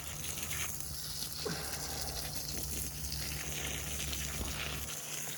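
Garden hose spraying water into a soil planting hole: a steady hiss of running water.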